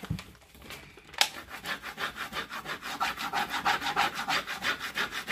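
Hand rubbing quickly back and forth over plastic transfer tape on a wooden board, burnishing a vinyl decal down onto the painted wood: a rapid run of scratchy strokes, several a second, starting about a second in.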